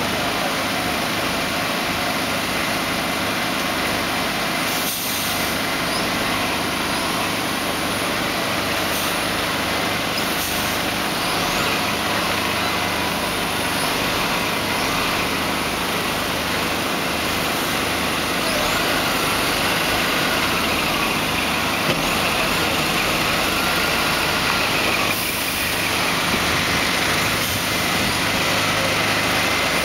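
Diesel engine of a heavy-haulage tractor unit running steadily under load as it slowly pulls a long modular trailer.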